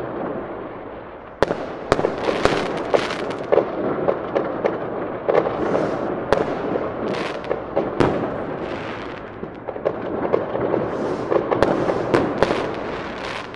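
Fireworks display: many sharp bangs in quick succession, with crackling between them. The bangs grow dense and loud about a second and a half in.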